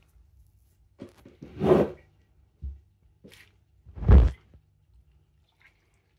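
Pieces of raw chitol fish being handled and shifted on a steel tray: two bumps about two and a half seconds apart, the second the loudest, with a few smaller knocks between.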